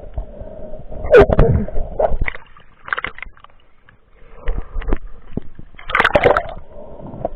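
Sea water splashing and sloshing around the camera in irregular bursts, with clicks. The loudest burst comes about a second in and another around six seconds in.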